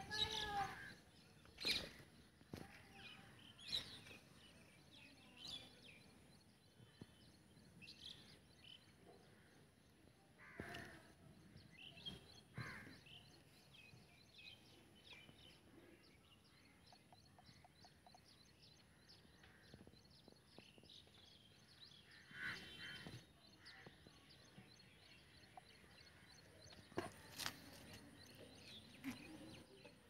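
Quiet outdoor nature ambience: birds chirping and calling now and then, with a few sharp clicks and a faint steady high tone behind.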